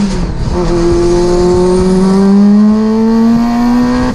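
Turbocharged VW Golf 1.8T four-cylinder pulling hard under full throttle, heard from inside the cabin. Its note drops once at an upshift just after the start, then climbs steadily as the car accelerates through the gear.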